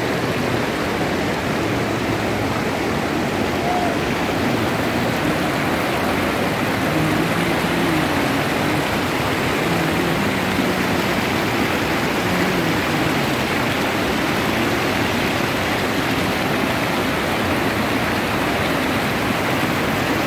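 Fast mountain river rushing through rapids over boulders: a steady, even noise of churning whitewater.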